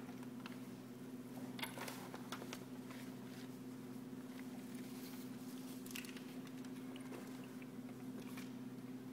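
Scattered light rustles and taps of paper and card scenery being handled and set in place in a small puppet stage, over a steady low hum.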